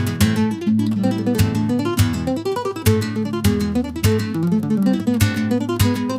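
Background music: acoustic guitar strumming and plucking in a steady rhythm, flamenco-like in style.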